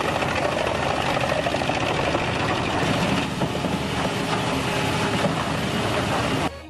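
Industrial wood chipper running: a steady, loud engine hum under dense mechanical noise, cut off abruptly near the end.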